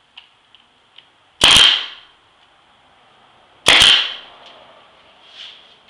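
Pneumatic brad nailer firing twice, about two seconds apart, each a sharp shot driving a brad into a wooden crate slat. A few light clicks come before the first shot.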